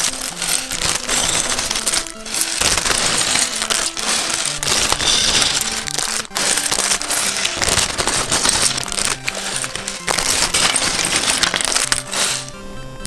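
LEGO pieces rattling and clicking inside a clear plastic parts bag while it is handled, the thin plastic crinkling, over background music. The rattling stops shortly before the end, leaving only the music.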